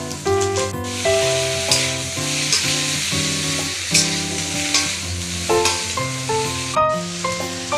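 Sliced onion and potato sizzling as they fry in hot oil in a pan, with stirring; the sizzle cuts off suddenly near the end. Instrumental background music plays over it.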